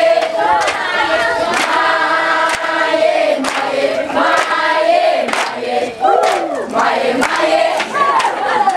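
A group of children and teenagers singing together in chorus, with sharp beats now and then.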